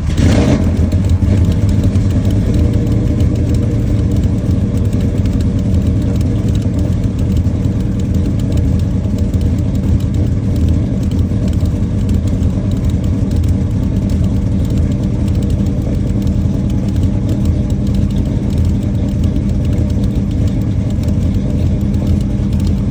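1955 Chevrolet's engine running, briefly louder right at the start and then settling into a steady idle.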